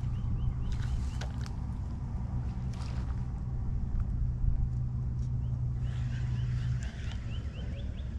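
A steady low motor drone that cuts off about seven seconds in, with a few sharp clicks early on and a quick repeated high chirping in the second half.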